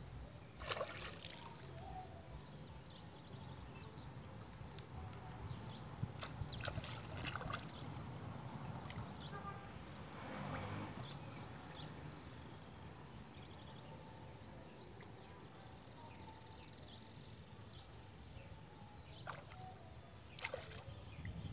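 Faint pond-bank ambience: a low rumble of wind on the microphone under a steady high hiss, with scattered light clicks and rustles as a fishing pole is handled, and a brief soft splash about ten seconds in.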